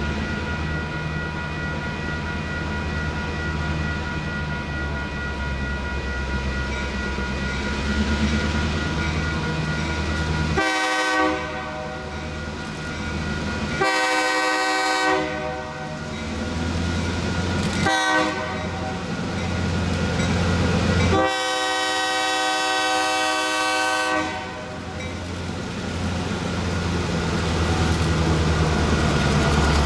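Locomotive's Nathan K3LA five-chime air horn sounding four blasts for a grade crossing, the last one held longest. Beneath it the EMD GP38-2 diesels rumble steadily and grow louder as the train approaches.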